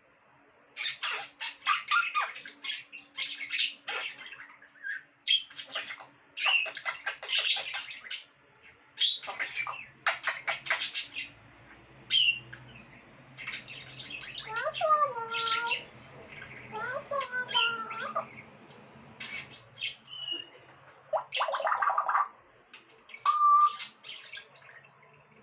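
Pet parrot squawking and chirping in many short bursts, with two longer warbling calls that bend up and down in pitch in the second half, in the style of its mimicked voice sounds.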